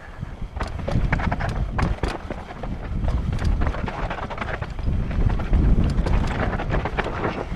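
Commencal downhill mountain bike clattering over rock at speed: many sharp knocks and rattles in quick, uneven succession as the tyres and bike hit the rocky trail, over a low rumble of wind on the microphone.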